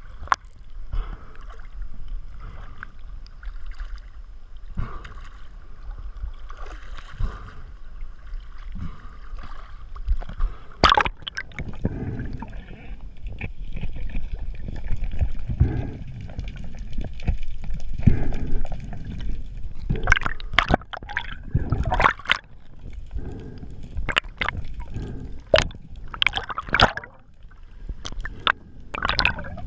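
Underwater sound picked up by a diver's camera: water sloshing and gurgling against the housing, with a low rumble and irregular sharp knocks and clicks, which come more often in the second half.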